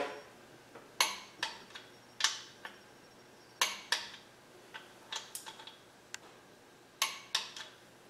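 A click-type torque wrench and its socket clicking and clinking on the main bearing cap bolts of a small-block Chevy 350, in about fifteen short, sharp metallic clicks spaced unevenly. The wrench's click marks each bolt reaching its set torque of 30 foot-pounds.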